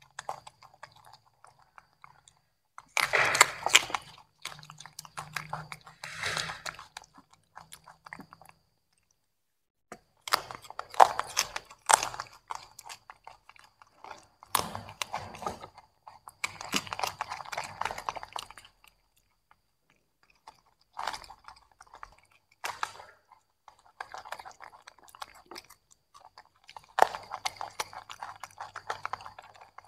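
Two young macaques chewing and crunching broccoli and carrot pieces, in irregular bouts of crisp crunches with pauses of a second or two between them.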